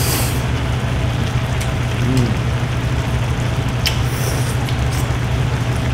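Octopus hot pot bubbling at a boil over a steady low hum, with noodles slurped at the start and again about four seconds in, and a few light clicks.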